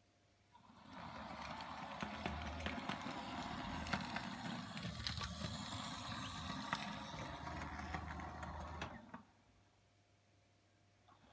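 A model train running past on the layout track: a low motor hum with many small clicks from the wheels on the rails. It rises about a second in and dies away shortly before the end.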